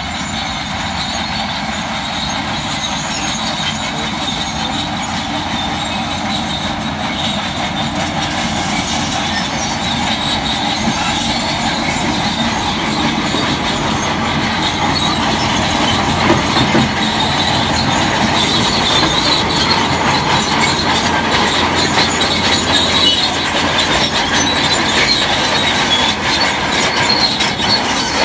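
Tracked heavy machine working: its steel crawler tracks squeal and clank over a steady diesel engine, and the noise grows gradually louder.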